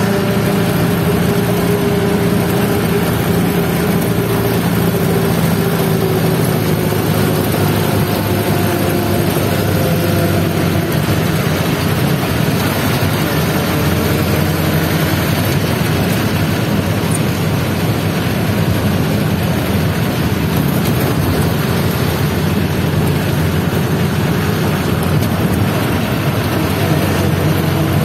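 Vehicle engine running steadily while under way, under dense road and wind noise from the moving vehicle.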